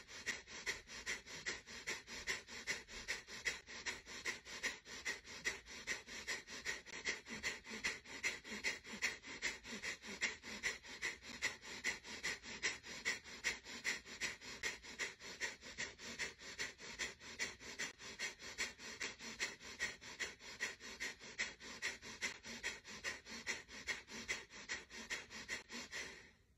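Kapalbhati breathing: quick, forceful exhalations snorted out through the nose, roughly two a second in an even rhythm, stopping abruptly near the end.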